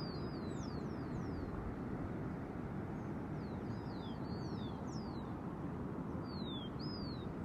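Birds calling: many short whistled notes, each sliding down in pitch, scattered in loose groups. Under them runs a steady low rushing noise.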